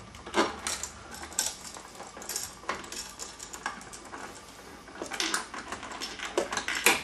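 Irregular light metallic clicks and clinks of toggle switches' metal mounting straps and a screwdriver shaft knocking against a two-gang electrical box as the switches are pushed into place for a test fit.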